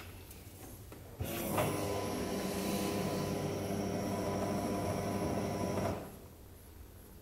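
Walbro 450 in-tank electric fuel pump, wired straight to a battery, starts abruptly about a second in and runs with a steady hum for nearly five seconds before cutting off. It is running to pressurise the new fuel lines for a leak check.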